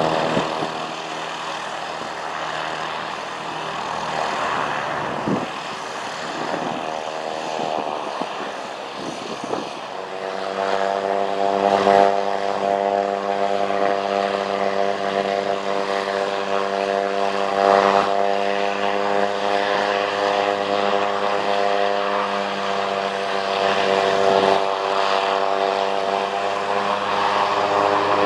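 Single-engine Piper PA-28-181's four-cylinder Lycoming O-360 and propeller running. The engine speed wavers for the first several seconds, then settles to a steady, louder note about ten seconds in.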